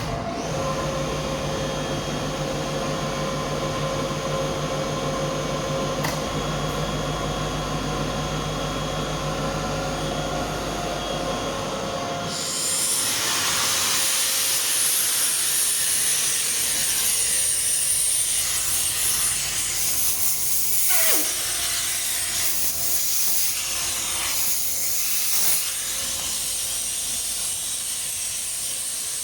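Kaeser SX6 rotary screw air compressor running with a steady machine hum and whine. About twelve seconds in, a loud hiss of rushing air sets in and stays, with a brief falling whistle partway through.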